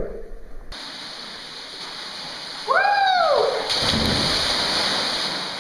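A person gives a rising-then-falling whoop about three seconds in, then hits the water in a big splash at the foot of a waterfall. The falls' rushing water runs under it all.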